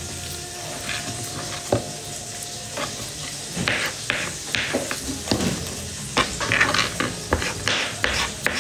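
Knife cutting food on a board: short chops and scrapes, sparse at first, then coming quickly from about three and a half seconds in.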